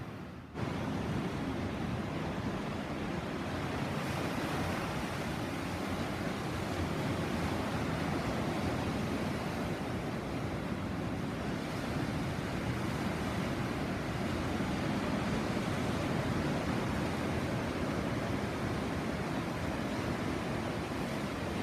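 Caribbean sea surf: waves breaking and washing onto the shore in a continuous rush that swells and eases slowly, with a brief dip in level about half a second in.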